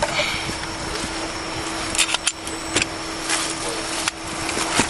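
Steady roadside traffic noise with a low hum, broken by a few sharp clicks and rustles, about two, three and four seconds in.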